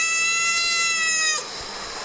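A domestic cat's long, drawn-out meow held at a steady pitch, ending about one and a half seconds in.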